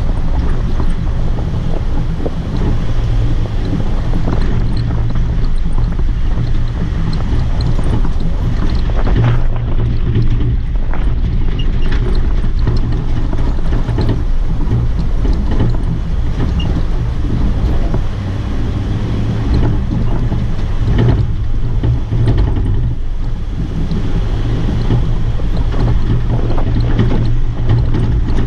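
Jeep driving off-road on a sandy track, heard from a hood-mounted camera: a steady low rumble of engine and tyres with wind buffeting the microphone and occasional short knocks.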